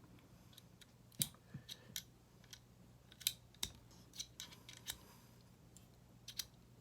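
Irregular sharp metallic clicks and taps, about a dozen, from the small steel parts of a multitool being handled: the quarter-inch bit adapter and its screwdriver bits knocking and clicking together.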